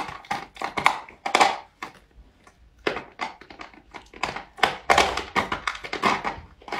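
A golden retriever's teeth gnawing and crunching on a small plastic bottle as it works at the cap. The sound is a run of irregular clicks, crunches and knocks, with a short pause about two seconds in.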